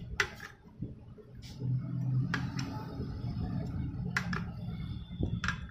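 Scattered sharp clicks and knocks of hand tools and engine parts being handled during motorcycle engine assembly, four or five in all, over a steady low hum.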